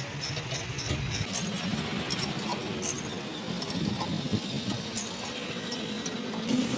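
Light metal clinks and ticks from a screw jack being turned by hand with a bar, over a steady low engine hum.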